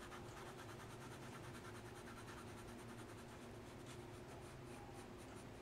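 Faint scratching of a red coloured pencil shading on drawing paper, laying down colour with light strokes.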